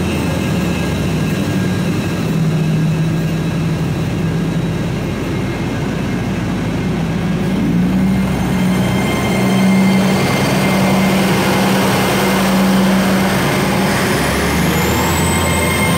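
Trains at a station platform: a steady low engine hum that shifts pitch a few times over continuous rumbling noise. A high whine begins rising near the end, as a train's electric traction starts to pull away.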